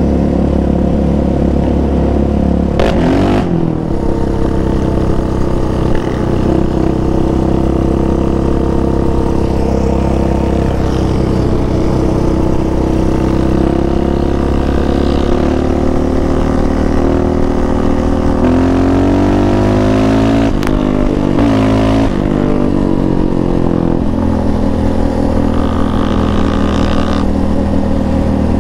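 2019 Yamaha Raptor 700R's single-cylinder four-stroke engine running under way, heard from the handlebars. The engine pitch drops and climbs again as gears are shifted: once about three seconds in and twice more around twenty seconds in.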